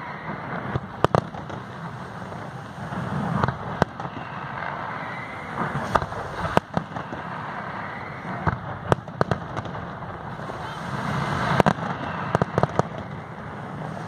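Fireworks display: aerial shells bursting with sharp bangs at irregular intervals, over a steady background of noise. A quick run of several bangs comes near the end.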